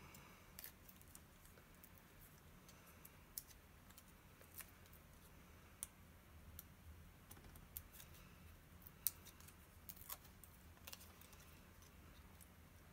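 Near silence, broken by faint, scattered clicks and taps from hands handling small paper pieces and cardstock, with a few sharper ticks, over a faint low hum.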